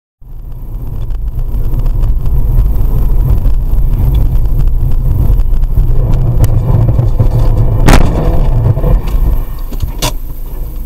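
Car driving, heard from inside the cabin through a dashcam microphone: a loud, steady low road-and-engine rumble. Two sharp knocks cut through it, about eight and ten seconds in.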